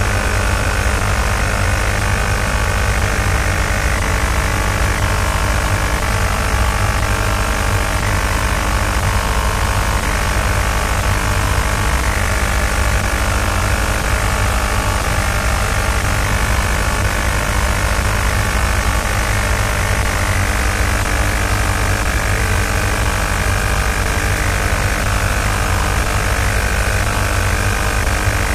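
Steady, loud, deep rumble of vibration inside the Orion crew module's cabin while the rocket is still thrusting during ascent, with a constant hum of steady tones on top.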